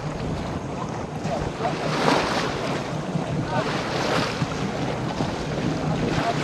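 Wind buffeting the microphone and choppy water splashing against a boat's hull, in gusts that swell about two and four seconds in, over a low steady drone.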